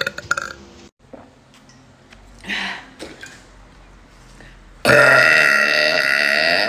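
A person letting out a long, very loud burp that starts abruptly about five seconds in and goes on for nearly two seconds, after a softer short sound earlier.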